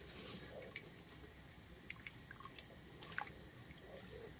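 Wooden spoon stirring a thick cream and Parmesan sauce in an electric pressure cooker's pot: faint wet squishing with a few small scattered ticks of the spoon.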